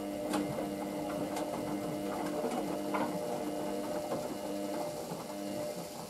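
Hoover VisionDynamic washing machine turning its drum, a steady motor hum with wet clothes sloshing and tumbling and scattered clicks.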